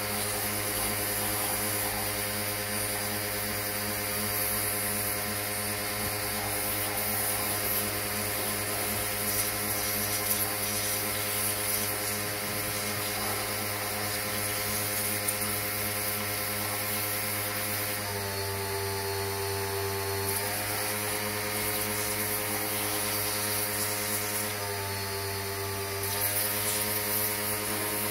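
Pressure washer running steadily, its jet hissing as it blasts the bare aluminium four-cylinder block of a Yamaha four-stroke outboard. About two thirds of the way through, and again near the end, its pitch drops for a second or two and then comes back up.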